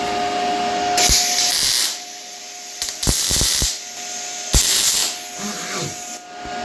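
Three short hissing bursts, with a few sharp knocks around the second one, over a steady hum.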